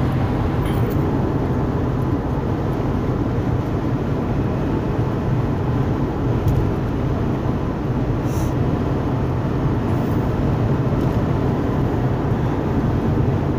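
Steady road noise inside a car cabin at highway speed, a constant low rumble of the moving car.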